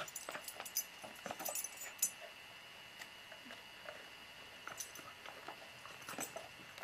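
An animal crunching a hard dog biscuit: irregular sharp cracks, thick in the first two seconds and sparser after.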